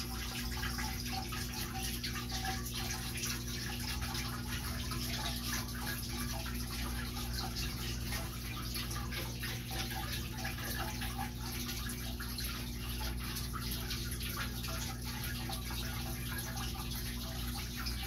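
Indoor decorative waterfall running: water falling into its basin with a steady trickling splash and many small drips.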